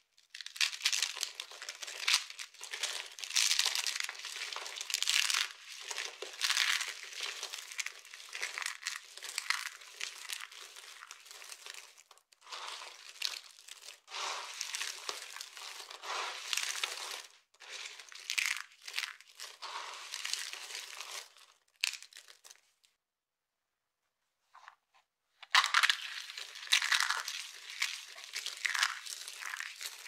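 Dry soap curls and shards crunching and crackling as hands crush and scrunch them, in bursts with short pauses and a silent stretch of about three seconds near the end.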